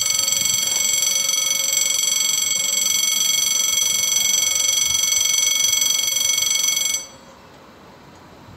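Electric level-crossing bell ringing continuously, warning of an approaching train, then stopping abruptly about seven seconds in, leaving only faint outdoor hiss.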